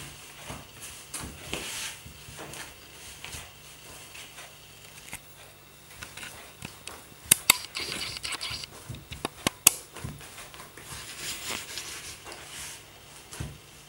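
Hands kneading soft yogurt-and-flour dough in a bowl: irregular squishing and patting. A few sharp knocks come about seven and nine and a half seconds in.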